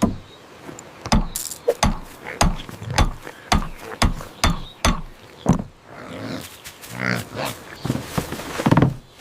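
Cartoon sound effects: a run of sharp knocks about twice a second, with short animal grunts in between.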